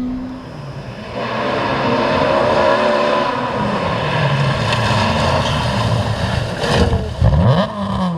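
A classic Ford Escort rally car's engine revving hard on a stage, loud and rising in level over the first couple of seconds. Near the end come a few sharp cracks, and the revs drop and climb again quickly, as on a lift-off and gear change.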